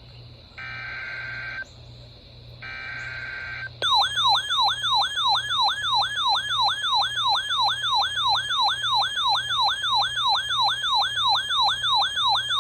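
Emergency Alert System SAME header: two bursts of warbling data tones, each about a second long with short gaps between them. About four seconds in, a loud siren-like attention tone starts and whoops up and down about three times a second.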